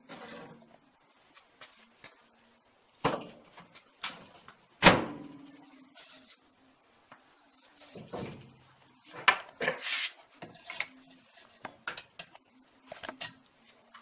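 A series of knocks and clunks from handling a microwave kiln: it is lifted out of a microwave oven and set down, with the sharpest knock about five seconds in and more clatter near the end.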